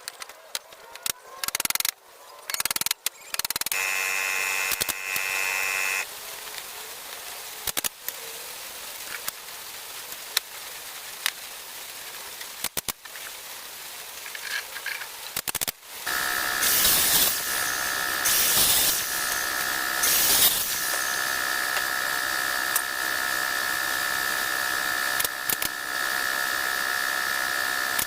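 Power tools working wood: a few sharp knocks, then a power tool's motor whining for about two seconds some four seconds in. From about sixteen seconds in a power tool runs steadily, with three short noisy bursts soon after it starts.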